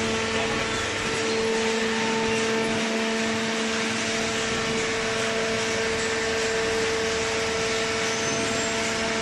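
Hydraulic cardboard baler running: a steady machine hum with a constant low tone from its motor and hydraulic pump, over an even rushing noise.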